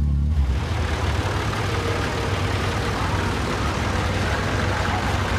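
Vintage tractor engines running, with a small tractor driving slowly past close by and a steady low engine rumble throughout.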